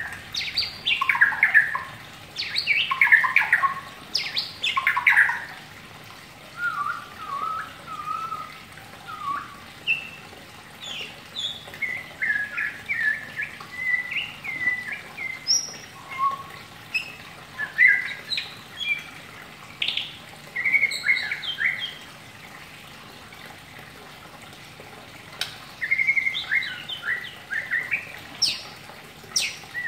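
White-rumped shama twittering (ngeriwik): a run of short chirps and trills, with louder sweeping phrases in the first few seconds, then quieter notes, a pause of about three seconds late on, and the twittering starting again near the end.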